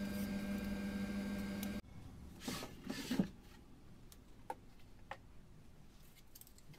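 A steady machine hum with a clear low tone and light wooden clicks as thin laser-cut plywood pieces are handled. The hum cuts off abruptly under two seconds in, leaving faint rustles and a couple of small clicks.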